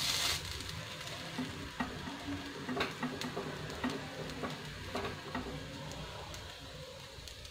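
Semolina sandwich frying on a nonstick tawa with a steady sizzle, browning on its second side, while a slotted spatula taps and scrapes against the pan several times.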